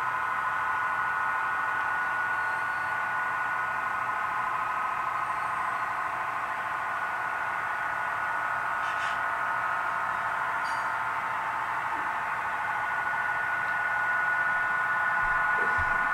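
Model train diesel locomotives running upgrade, a steady droning hum that grows louder near the end as the train approaches.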